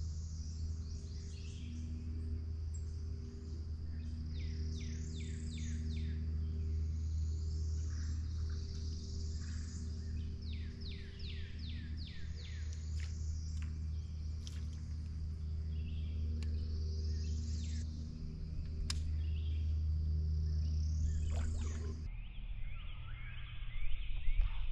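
Swamp ambience: birds calling in repeated runs of quick falling notes over a steady high insect drone, all above a louder steady low hum. The sound changes abruptly near the end.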